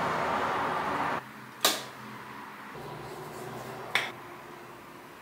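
A steady hiss that cuts off suddenly about a second in, then two sharp clicks about two seconds apart.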